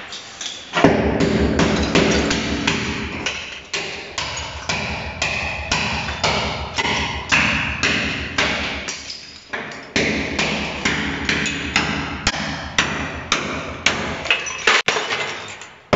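Hammer blows knocking old ceramic tiles off a bathroom wall, a sharp strike about twice a second.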